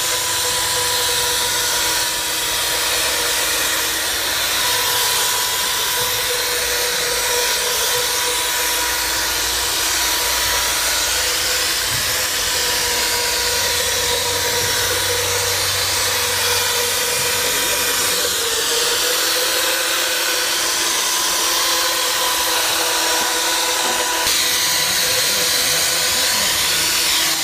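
Hand-held electric wall plastering float (trowel machine) running steadily, its spinning disc pad rubbing over fresh plaster render on a wall. A steady motor whine sits over a continuous rough rubbing noise.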